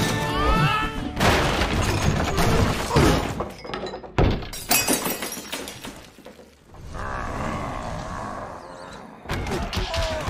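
Crashes and breaking sounds over music, with a short quieter stretch about two-thirds of the way through.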